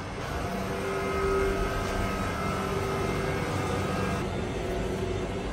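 Steady hum of grocery-store refrigeration equipment, a low drone with a few held tones above it.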